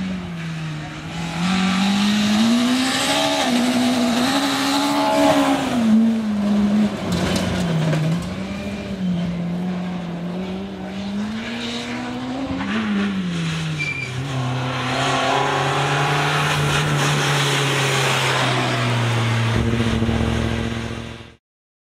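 Citroën C2 R2 Max rally car's four-cylinder engine revving hard, its pitch climbing and dropping again and again through gear changes, with tyre and road noise over it. From about two-thirds of the way in it runs at a steadier, lower pitch, and the sound cuts off suddenly just before the end.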